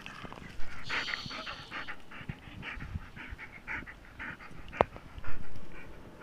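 A dog panting close up, quick rhythmic breaths about three a second. Near the end a sharp click and a louder thump.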